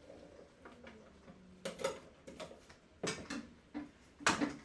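Kitchen clatter of a plastic container and utensil knocking and tapping against a steel cooking pot while tomatoes are emptied in. The sharp knocks come in small groups, the loudest near the end.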